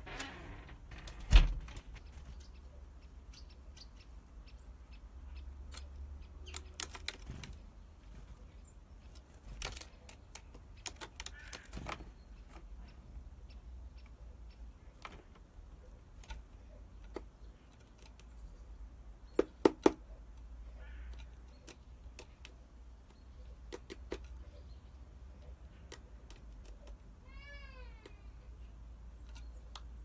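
Light clicks and taps of a great tit landing and moving about on a plastic-bottle bird trap, with one sharp knock about a second in and a quick run of taps about two-thirds through. Near the end comes a short call of falling notes, over a low rumble of wind.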